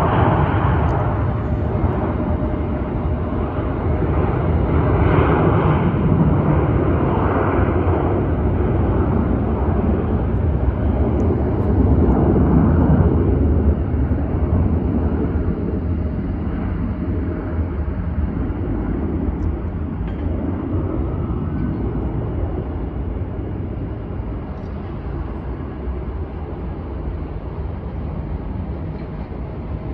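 An airliner's jet engines rumbling steadily, with a faint steady whine above the rumble, loudest about halfway through and then slowly fading.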